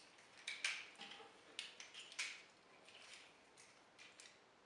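Faint, irregular clicks and light rubbing of hard plastic parts as a Transformers action figure's leg pieces are rotated and folded into place by hand.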